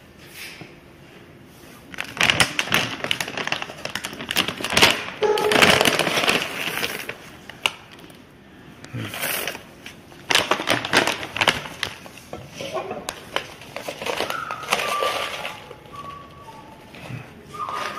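Plastic bag of paraffin wax pellets crinkling, with the hard wax pellets rattling and clicking as they are scooped by hand, in irregular spells.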